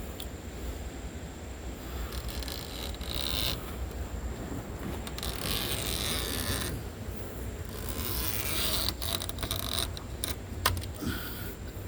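Three scraping strokes of a hand tool working along a screen door frame, then a sharp click near the end, over a steady low hum.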